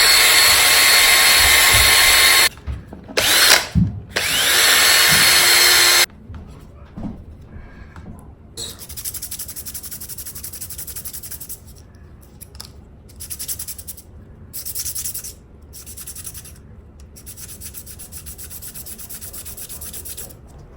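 A cordless power tool, likely a drill, runs with a steady whine in two long bursts over the first six seconds. Quieter scratchy rubbing of sandpaper follows in short stretches.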